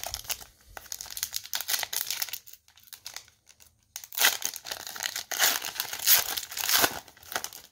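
Wrapper of a 2011-12 O-Pee-Chee hockey card pack crinkling and being torn open by hand, in two spells of crackling with a short lull in the middle, the second spell louder.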